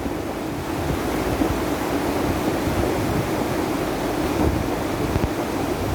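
Rain-swollen stream in spate, its water rushing steadily and loudly down the channel.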